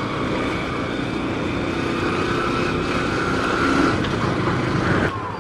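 Motorcycle engine running steadily while riding, mixed with wind and road noise. It drops briefly near the end.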